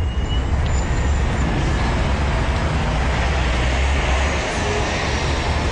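A moving vehicle running steadily: a deep, even rumble under a constant rushing noise.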